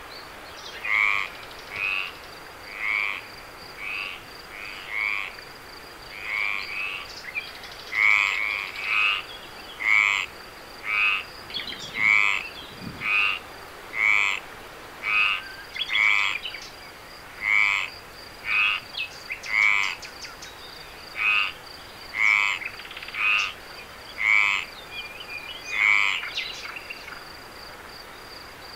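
Frogs calling at night, short loud croaks about once a second, over a steady high-pitched insect trill. The croaking stops shortly before the end, leaving only the trill.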